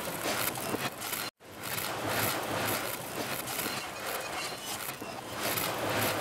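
Dense, noisy sound effect of a video intro, filling every pitch range evenly with no voice or tune in it, broken by a momentary dropout about a second in.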